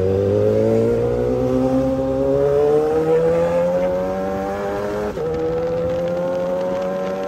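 Motorcycle engine accelerating, its pitch rising steadily, with a brief drop about five seconds in before it climbs again.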